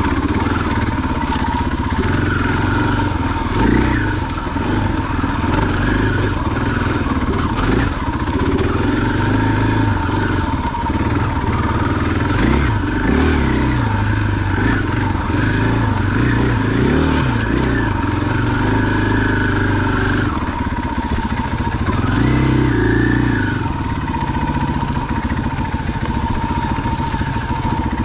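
2021 KTM 500 EXC-F's single-cylinder four-stroke engine running under way on a dirt trail, its pitch rising and falling repeatedly as the throttle is opened and closed.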